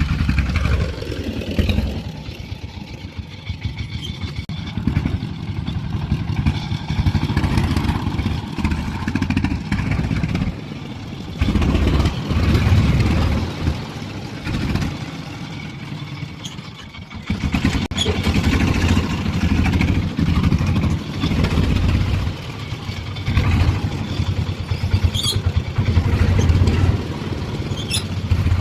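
The engine of an old three-wheeled farm truck runs as the truck drives laden with about a tonne of sand, chugging and clattering. Its loudness rises and falls, easing off twice.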